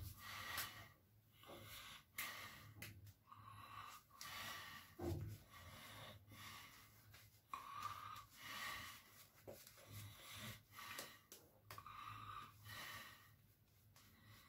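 Faint soft strokes of an Omega 829 shaving brush working wet lather over the face, a short swishing rub about every half second to a second.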